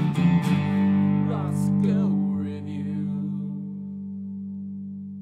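Short guitar music sting: a few chords strummed at the start, some sliding notes, then a final chord left ringing and slowly fading.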